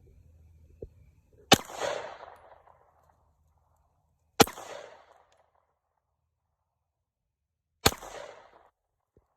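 Glock 19X 9mm pistol fired three times, a few seconds apart, each loud shot trailing off in a short echo.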